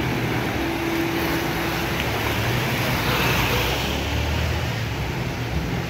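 Vehicle engine running at low speed with a steady wash of tyres moving through shallow muddy floodwater.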